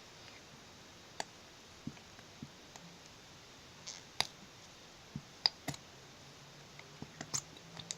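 Scattered light clicks and taps, about a dozen at irregular intervals, from a plastic glue pen being squeezed and handled to pour glue into a bowl.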